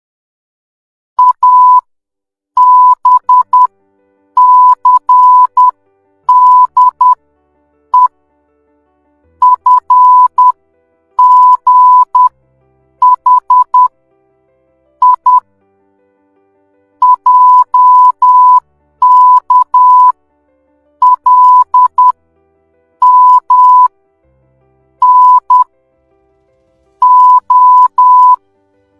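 Morse code sent as a single high-pitched beep tone, keyed on and off in short dots and longer dashes, grouped into letters with pauses between them.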